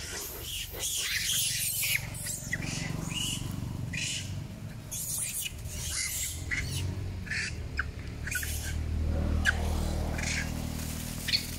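Macaques screeching during a fight: many short, high-pitched cries come one after another throughout, over a low background rumble that is strongest in the second half.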